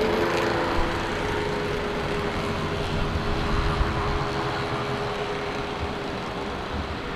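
Airliner's engine noise fading away after it passes the runway, a steady rushing that slowly dies down. Its humming tones drop out within the first second or two.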